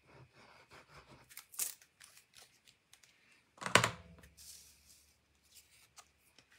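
Handheld tape runner being rolled over the back of a paper panel, a string of small rasping clicks as the adhesive is laid, followed by paper rustling and one louder sharp knock about halfway through.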